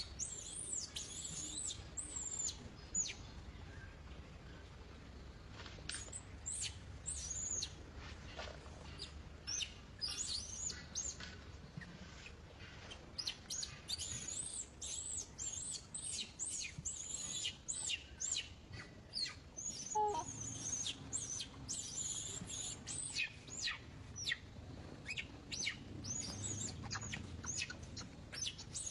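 Baby long-tailed macaque screaming in distress, over and over, as it is pulled at: short, very high-pitched arching and falling squeals, often several a second, with a brief lull about three seconds in.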